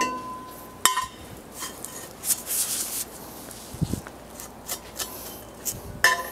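Cut pieces of steel tubing being handled and lifted out of the JMT WV260 metal band saw's vise, clanking and scraping metal on metal. A sharp clank with a brief ring comes about a second in, followed by a stretch of scraping and several lighter knocks.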